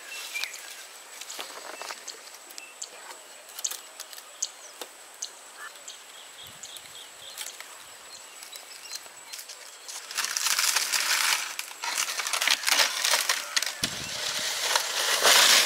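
Rustling and crackling with scattered sharp clicks, growing louder and denser about ten seconds in.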